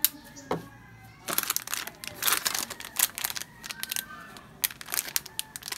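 Clear plastic packaging crinkling and rustling in bursts as a silicone AirPods case cover is handled and unwrapped, after a sharp click at the start.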